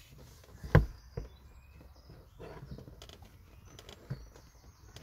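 A sharp knock about a second in, a lighter knock just after it and another near the end, over low shuffling and handling noise from someone working in a car's bare rear footwell.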